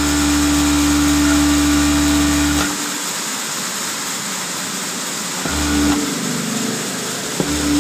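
Industrial sewing machine stitching the edge of a knitted glove, its motor running in bursts: a steady hum for the first two and a half seconds, a short run about five and a half seconds in, and starting again near the end. A constant machine hiss continues underneath throughout.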